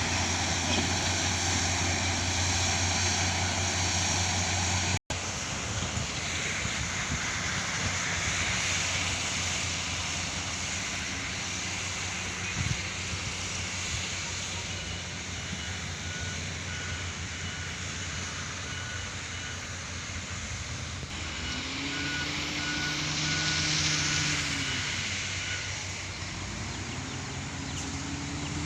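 Excavator's diesel engine running steadily. In the second half a repeating beep sounds, typical of a travel or reversing alarm. Near the end the engine pitch rises and falls twice.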